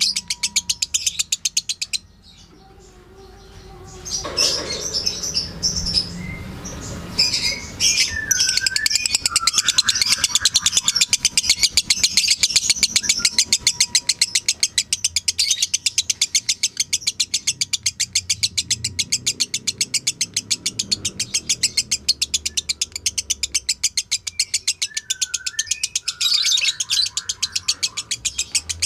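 Lovebird singing its long, fast chattering song ('ngekek'): a rapid, even stream of high chirps that stops about two seconds in, picks up again a couple of seconds later and runs on. A few lower, short whistled notes sound over it.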